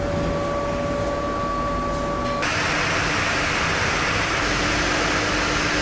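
Steady factory machinery noise with a high, even whine. About two and a half seconds in it changes abruptly to a hissier machine noise with a low steady hum.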